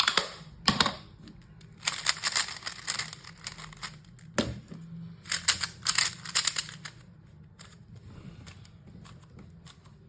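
Magnetic 3x3 speed cube turned quickly by hand, its plastic layers clacking in bursts of rapid clicks. There is a loud single click in between, and the turning thins out to scattered clicks in the last few seconds.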